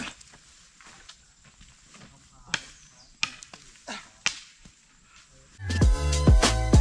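Scattered footsteps on dry, clumpy dirt: scuffs and sharp knocks with quiet between them. About five and a half seconds in, loud intro music with a heavy bass beat cuts in.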